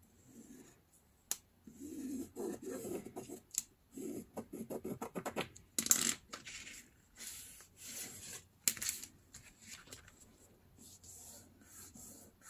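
A pencil scratching along a ruler on newspaper, and hands rubbing and creasing the paper as it is folded, with a few sharp knocks.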